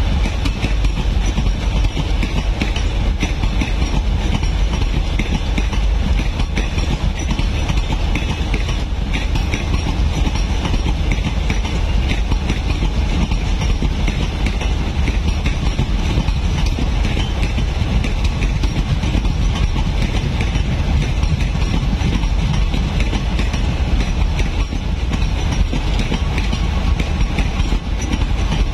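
Passenger train coaches rolling past on the adjacent track: a steady, loud rumble with wheel clatter over the rails.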